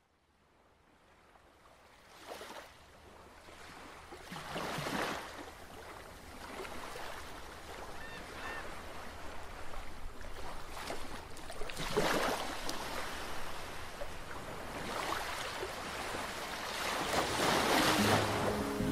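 Ocean waves washing in, fading up from silence and swelling in surges every few seconds.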